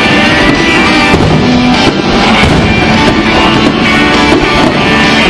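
Loud music from a radio broadcast, a full band with a steady sustained sound.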